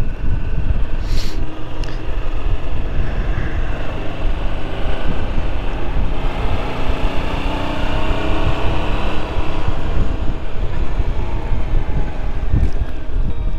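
Yamaha MT-07 parallel-twin motorcycle engine running at speed under heavy wind rush on the onboard microphone. The engine note shifts slightly in pitch about halfway through.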